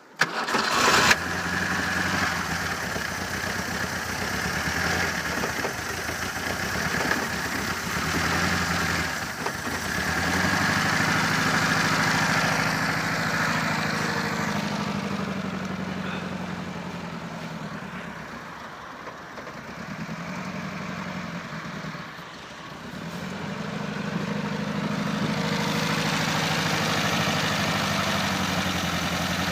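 Engine cold-starting in about −20 °C frost: it catches abruptly within about a second, then runs continuously, its speed slowly rising and falling a few times.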